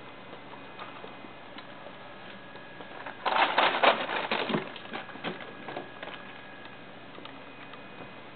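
Scattered light clicks and patter from a ferret at play, broken about three seconds in by a loud burst of scrabbling and rustling that lasts about a second and a half and then tails off in a few smaller rustles.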